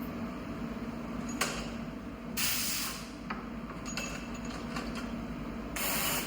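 CNC lathe (turning center) running while its X and Z axes return to origin: a steady machine hum broken by three short bursts of hiss, the longest about half a second.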